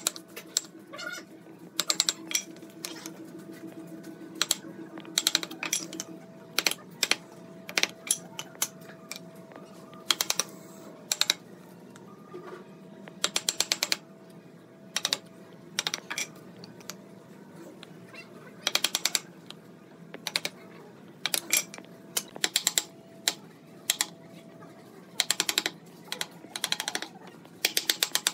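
Wooden mallet striking the handle of a wood chisel in quick bursts of several blows with short pauses between, as the chisel chops a notch into a wooden chair part.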